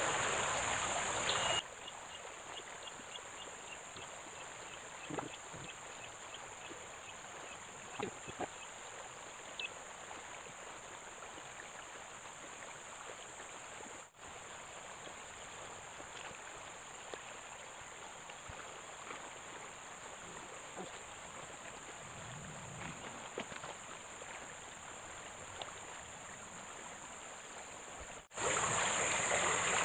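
Riverside ambience: a steady high-pitched insect chorus over a faint hiss of flowing water, with a few soft scattered clicks. It is louder for the first second and a half and again near the end.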